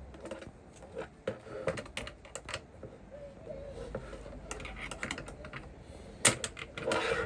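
Irregular small clicks and taps of metal and plastic engine parts and hand tools being handled, with one sharper knock about six seconds in followed by a brief scrape.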